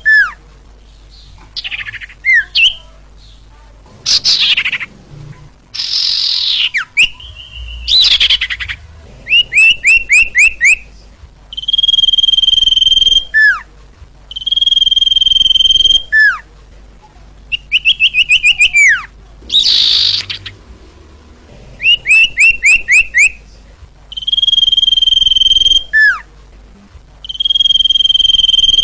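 Sirtu bird song played loud as a trapping lure. Long, steady high whistles, each ending in a quick falling slur, alternate with fast runs of descending chirps and a few harsh rasping notes. The same phrases repeat over and over.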